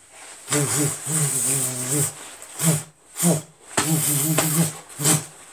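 A man's loud, hoarse wordless yells: one long cry starting about half a second in, then a string of short shouts.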